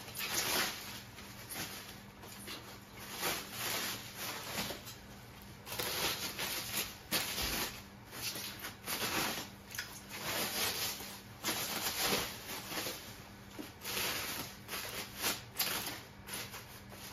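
Plastic wrap crinkling and rustling in irregular bursts as it is handled and pulled off a car headlight packed in foam.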